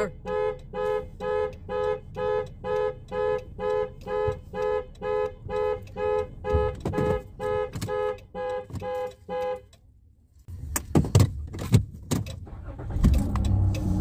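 Van's horn honking in quick, evenly spaced beeps, about two a second, set off by the key fob's panic button. It cuts off about nine and a half seconds in, followed by a few clicks and knocks.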